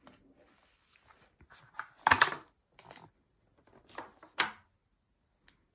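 A pen scribbling and scratching on a sheet of paper, with the paper rustling, in short irregular strokes; the loudest strokes come about two seconds in and again about four and a half seconds in.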